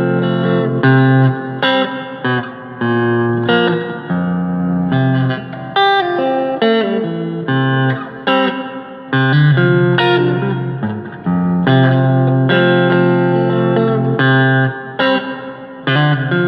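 Agile TC-625 electric guitar played with a little reverb: a run of picked notes and chords that ring out, with short breaks between phrases.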